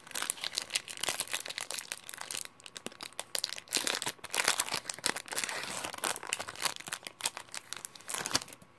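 Foil wrapper of a Pokémon XY booster pack crinkling and tearing as it is opened by hand, a dense run of sharp crackles.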